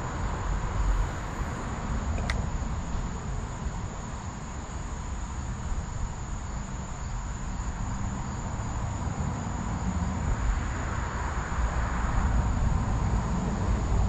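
Insects droning in one steady high-pitched tone over a low rumble that grows louder near the end, with a single sharp click about two seconds in.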